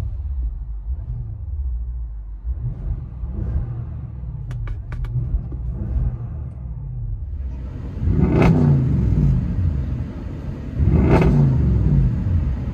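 Audi S7's 4.0-litre twin-turbo V8 heard from inside the cabin, revved in park. For the first several seconds it runs with muted rises in revs. About 8 seconds in it turns louder and harsher, with two quick, sharp rev blips.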